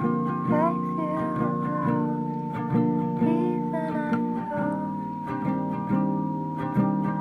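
Background music led by plucked guitar, with a steady rhythm of chords and a held melody line above.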